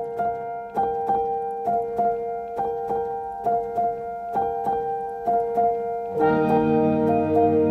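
Calm background piano music: slow, evenly spaced notes ringing over held tones, joined about six seconds in by a fuller layer of sustained chords.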